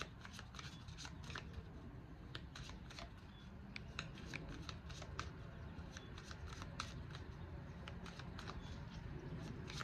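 A deck of tarot cards being shuffled by hand: a run of soft, irregular clicks and flicks as the cards slide past one another.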